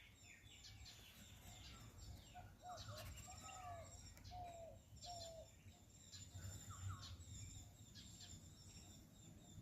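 Faint birdsong: several birds chirping, with short high chirps throughout and a run of lower, arched whistled notes in the middle, over a faint low rumble.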